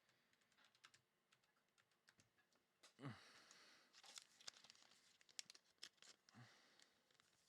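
Faint clicks and crinkling of trading cards and plastic card sleeves being handled, with a short rustle about three seconds in.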